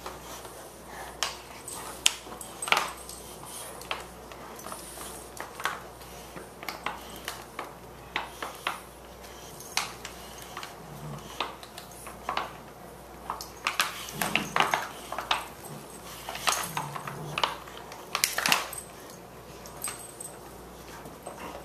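Two Boxer dogs play-fighting over a plush toy: scattered sharp clicks and knocks throughout, with a few short, low growls.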